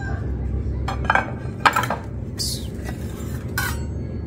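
Kitchenware clattering: a few separate clinks and knocks of pans and utensils over a steady low hum.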